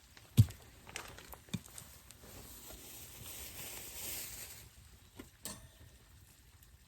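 A few sharp knocks and clatters, the loudest about half a second in, with a soft hiss lasting about two seconds in the middle.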